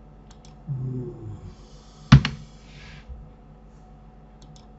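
Computer keyboard and mouse clicks during work at a computer, with one loud sharp click about two seconds in followed by a brief hiss. A short low hum of a voice comes about a second in.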